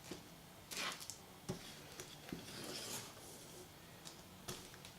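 Faint handling noise of sunglasses accessories and packaging: light rustles and a few small clicks and taps.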